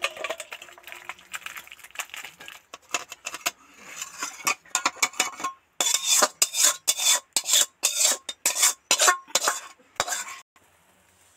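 A spatula stirring curry in a steel karai, scraping and clinking against the pan in quick strokes. The strokes grow louder and more regular, about two a second, in the second half, and stop suddenly about ten seconds in.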